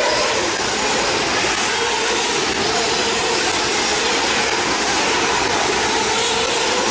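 Several 1/8-scale nitro RC buggies racing, their small two-stroke glow engines making a high-pitched buzz whose pitch rises and falls as they accelerate and brake around the track.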